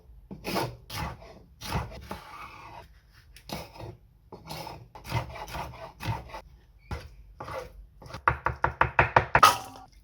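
Kitchen knife chopping on a wooden cutting board. Separate strokes come about one or two a second with some scraping, then a quick run of chops at about six a second near the end.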